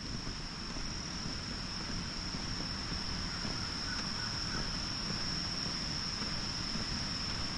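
Outdoor woodland ambience: a steady high-pitched insect drone that holds one pitch throughout, over a low rumble of wind on the microphone.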